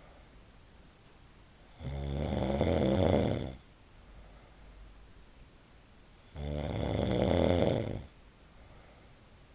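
A person snoring: two long snores about four and a half seconds apart, each lasting just under two seconds, with near quiet between them.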